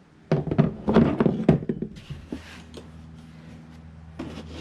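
A quick run of knocks and clatter as tools and parts are handled and shifted about while searching for a misplaced Allen key, dying down to a few light taps after about two seconds.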